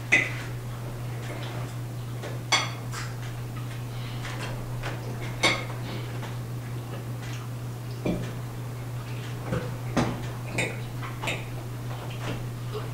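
Forks clinking and scraping against plates as people eat, in scattered sharp clinks, the loudest right at the start, over a steady low hum.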